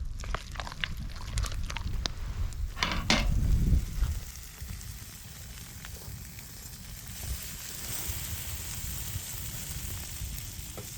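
Campfire crackling and hissing steadily, with a few clicks and knocks of handling over the first four seconds.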